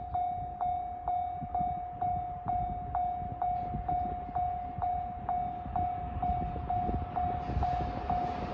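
Japanese level-crossing warning bell ringing steadily, about three strikes a second. Near the end a rising rush comes in underneath as the freight train, hauled by an EF510 electric locomotive, approaches.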